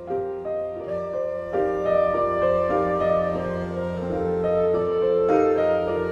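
Improvised acoustic chamber-jazz from a quartet of piano, clarinet, gourd string instruments and gourd bass. Piano sounds among slow, held melodic notes that shift pitch over a steady low tone.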